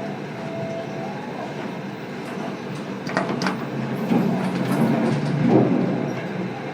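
Lift car running inside a hotel lift, a steady rumbling hum, with a couple of sharp clicks a little over three seconds in.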